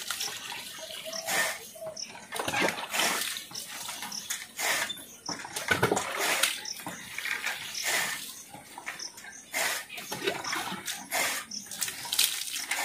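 Water poured from a steel mug over a water buffalo's head and neck, splashing and splattering onto its hide and the ground in repeated irregular pours.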